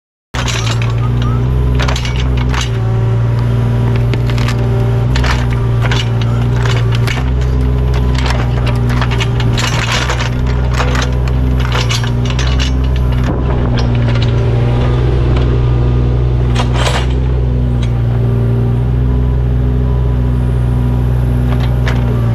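An engine running steadily at a low pitch, with many irregular sharp clicks and knocks over it from work on roots and rocks in the trench.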